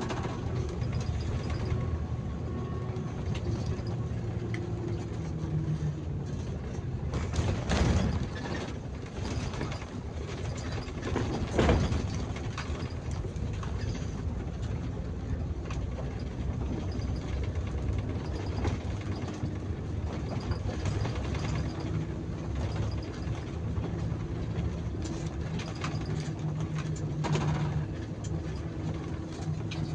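Bus engine running and road noise heard from inside the cab while driving, the engine note rising and falling in pitch. Two louder knocks about eight and twelve seconds in.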